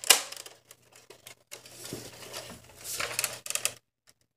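Clicks, knocks and rattling from a plastic toy pump-action shotgun being handled close to the microphone, with a sharp knock just after the start. The handling noise stops a little before the end.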